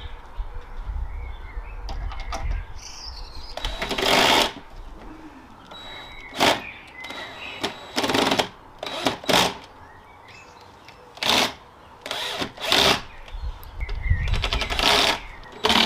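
Cordless drill-driver running in about ten short bursts, driving screws into a wooden panel, with birds chirping faintly between the bursts.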